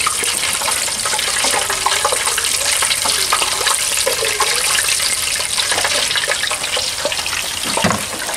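Hot oil sizzling and crackling steadily in a turkey-fryer pot as a fried turkey is lifted out of it, with a knock about a second before the end.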